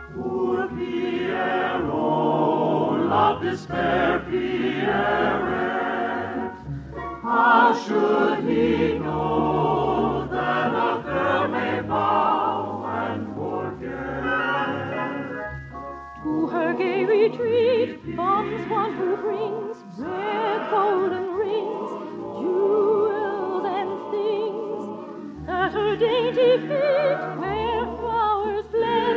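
Orchestral music with operatic singing and a choir, the voices wavering in vibrato; the sound has the narrow range of an old radio recording.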